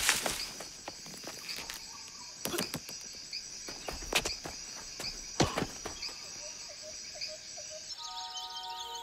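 Forest ambience with a steady high insect chirr, broken by a handful of sharp footfalls and light knocks. Soft music with held tones comes in near the end.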